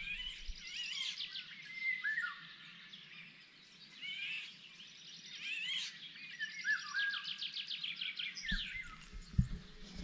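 Outdoor birdsong: a Eurasian golden oriole's whistled phrases, repeated about every four seconds, against other small songbirds singing rapid trills. A low rumble and a knock on the microphone come near the end.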